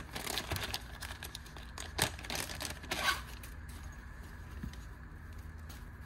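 Clear plastic packaging bag crinkling and crackling as it is opened and a fabric pouch is pulled out, busiest over the first three seconds, with sharp crackles about two and three seconds in, then quieter handling.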